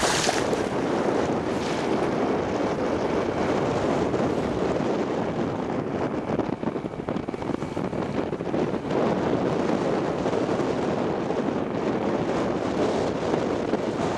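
Steady wind buffeting the microphone aboard a sailboat under way in strong wind, with the rush of water along the hull beneath it; the wind hits hardest right at the start.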